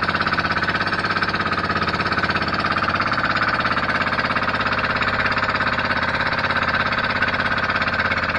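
Outrigger boat's engine running steadily at a constant speed, with a rapid, even pulse.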